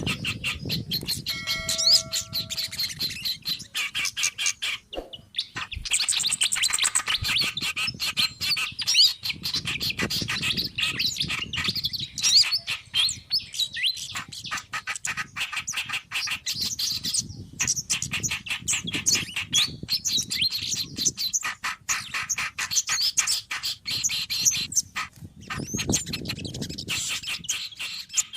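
Several small songbirds calling over one another in a dense, noisy chatter of rapid chirps and trills, as played on a bird-lure recording. A low rumble comes and goes underneath.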